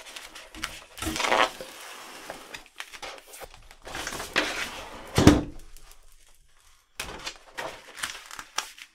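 A large sheet of vinyl wrap film rustling and crinkling as it is handled and smoothed flat by hand on a table. There is a loud crackle about a second in, and a louder thump a little past the middle.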